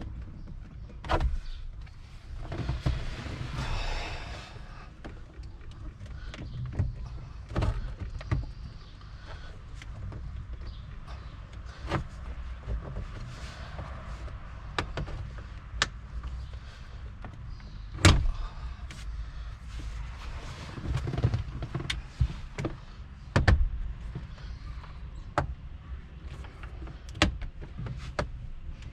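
Scattered clicks, knocks and scraping of a trim tool prying at a stubborn clipped-in plastic dash trim panel, with a rustle of handling a few seconds in and one sharp snap about eighteen seconds in.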